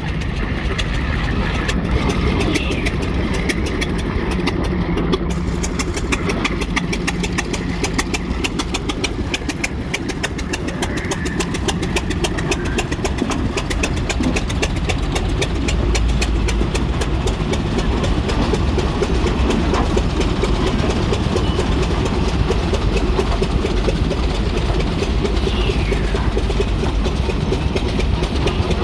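Antique engine running steadily with a rapid, even beat.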